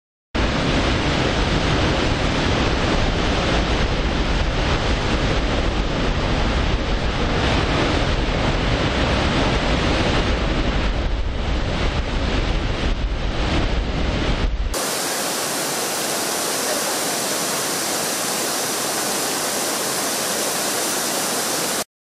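Düden Waterfall's heavy flow pouring over the cliff: a loud, steady rush of falling water, the falls swollen and muddy after heavy rain. About two-thirds of the way through, it cuts abruptly to a thinner, hissier rush of the waterfall plunging into the sea.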